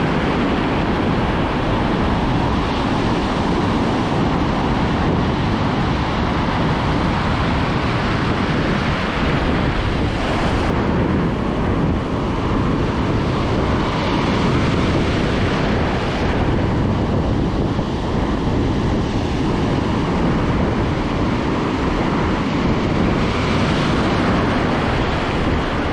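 Ocean surf breaking on a beach with wind buffeting the microphone: a steady rush of noise.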